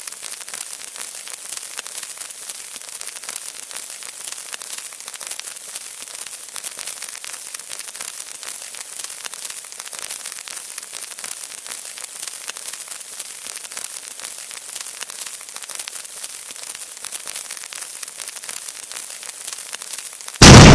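Sizzling, crackling hiss of a burning fuse sound effect, steady throughout. Near the end a loud explosion sound effect starts suddenly.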